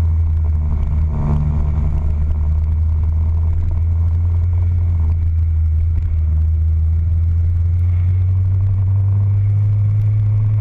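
Motorcycle on the move at a steady pace: a continuous low drone of engine, wind and tyre noise, picked up by a camera mounted low by the front fork.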